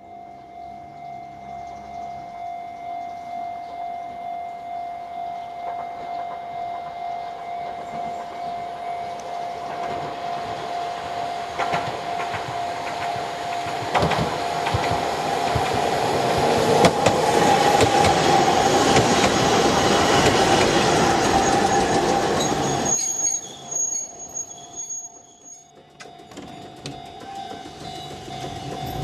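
Chikuho Electric Railway 2000-series articulated car 2003 approaching and running past, its wheels squealing and clattering on the rails, growing steadily louder to a peak before dropping sharply about 23 seconds in. A steady high tone sounds throughout.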